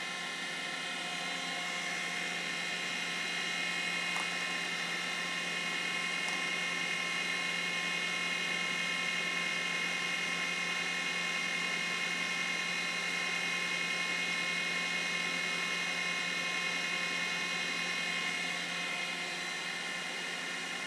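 Milltronics Partner 1 CNC vertical machining center running, a steady high whine made of several tones over a low hum. It gets a little louder a few seconds in and eases off slightly near the end.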